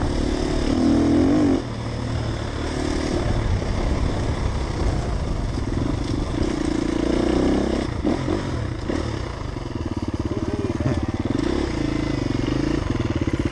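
Enduro dirt bike engine running at low speed along a dirt track, the revs rising and falling with the throttle. Its loudness drops abruptly about a second and a half in.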